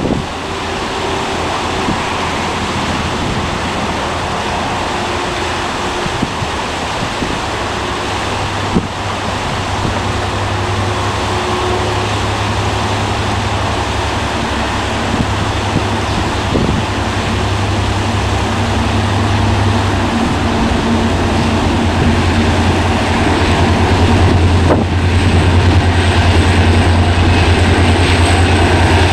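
EMD SD39-M2 diesel locomotive approaching with a container freight train; its engine is a steady low drone that grows louder over the second half. Wind noise on the microphone runs underneath.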